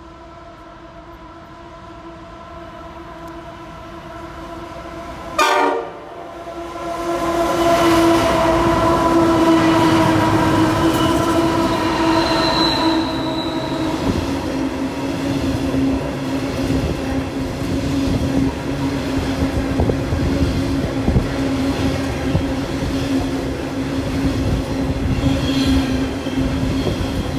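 Diesel-hauled coal train passing: the locomotives' steady droning tone grows louder as they approach and drops in pitch as they go by. Then the coal hopper wagons roll past with continuous wheel rumble and clatter. A single short, loud bang about five seconds in.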